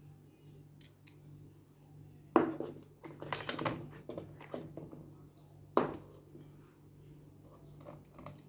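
Toy packaging being opened by hand: two sharp snaps, about two and a half and six seconds in, with a stretch of rustling between them and small clicks throughout.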